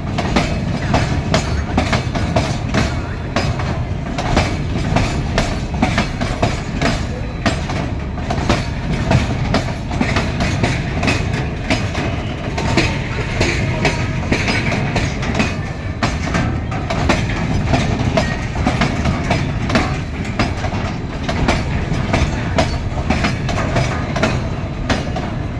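Indian Railways freight train wagons rolling along the track, with a steady rumble and a rapid run of wheel clacks over the rail joints.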